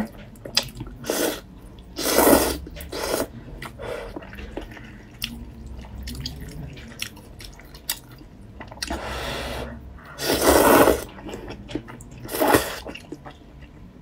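Luosifen rice noodles being slurped and chewed close to the microphone. There are several long wet slurps, the loudest about two seconds in and again around ten seconds in, with a shorter one near the end and small wet smacks and clicks between them.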